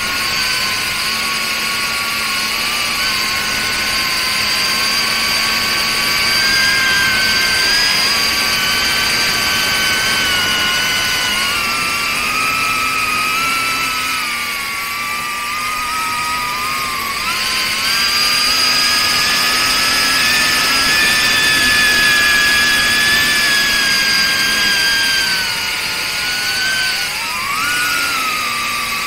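Pavo30 FPV cinewhoop's 3800 KV brushless motors and propellers whining in flight, heard close up from the onboard camera. Several tones rise and fall together with the throttle, with a sharp dip and quick climb near the end.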